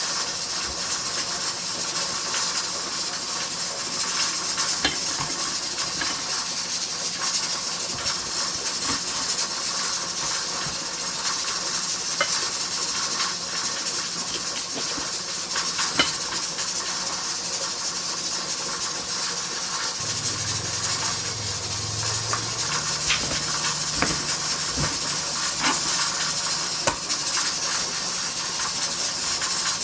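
Steady hissing of steam from a pressure canner, with scattered light clicks and clinks of kitchen utensils and dishes. A low hum joins for a few seconds about two-thirds of the way through.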